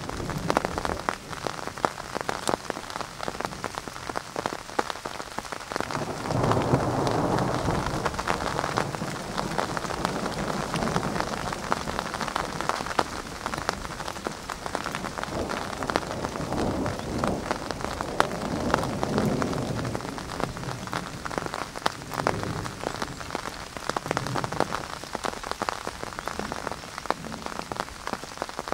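Steady rain pattering in many close drop clicks, with the low rumble of thunder rolling in about six seconds in for a few seconds and swelling again around twenty seconds.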